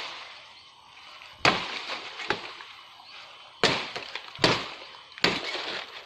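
Machete chopping through dry brush and branches: four sharp cuts, each followed by a brief crackle and rustle of dry leaves and twigs.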